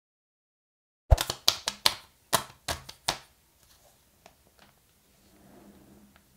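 Handling sounds from unboxing a MacBook Air: a quick run of about eight sharp clicks over two seconds, then a few faint ticks and a soft rustle as the laptop is lifted from its box.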